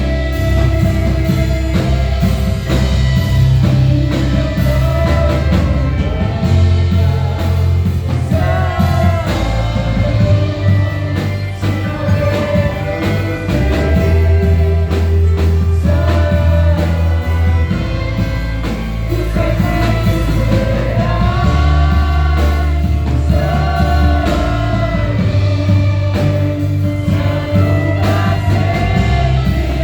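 Gospel worship music played by a church orchestra, with a singing voice carrying the melody over held bass notes and drums.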